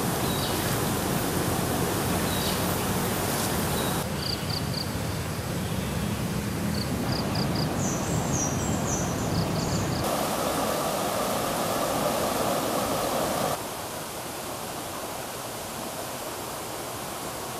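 Steady rush of flowing river water, with short high chirps in groups of three or four through the middle. The sound changes abruptly a few times, with a quieter, duller stretch of the water sound near the end.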